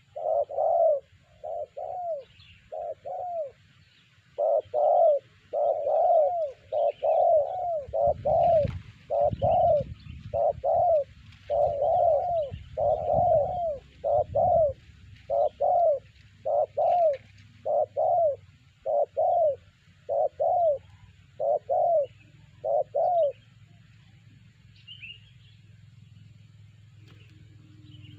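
Spotted dove (terkukur) cooing, a long series of short, arched coos in quick runs that stops about 23 seconds in.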